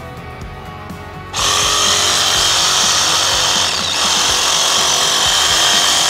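Ryobi cordless reciprocating saw starting about a second in and running steadily as its blade cuts down through a whole hog's backbone, over background music.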